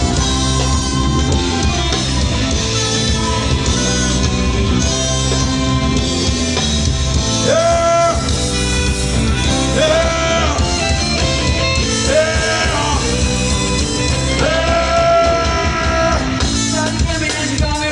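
Loud amplified live music: a band with heavy bass through the first part, and a singer holding long notes over it from about halfway through.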